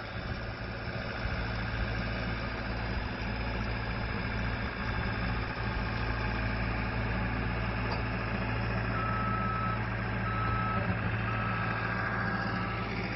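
Diesel engine of a Cat compact track loader running steadily under load as it moves a manufactured home section. About nine seconds in, a backup alarm starts up, evenly spaced beeps about once a second.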